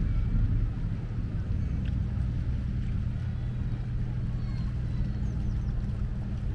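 Canal tour boat's motor running steadily underway, a low even hum.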